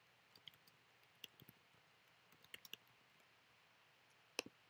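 Faint computer keyboard typing, a scatter of light key clicks, then a single sharper mouse click about four seconds in.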